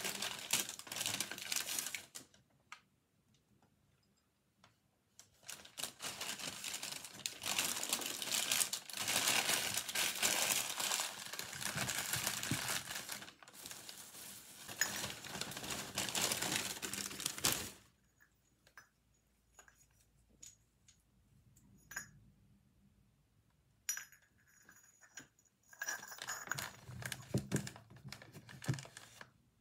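Paper wrapping and a thin plastic bag rustling and crinkling as items are unwrapped by hand, in long stretches with pauses. In the second half the rustling thins out, with a few light clicks and clinks of small ceramic cups set down on a table.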